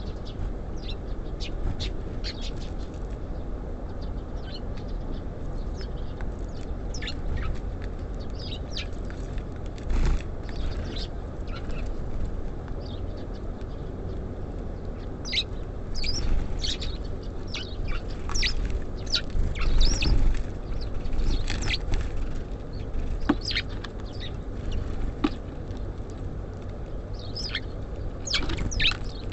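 Small songbirds chirping in short, high calls, more often in the second half, with a couple of knocks, over a steady low background rumble.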